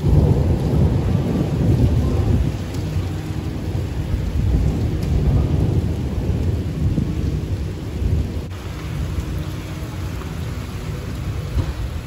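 A long, low rumble of thunder in a rainstorm, with rain falling. It starts suddenly and eases off over the last few seconds.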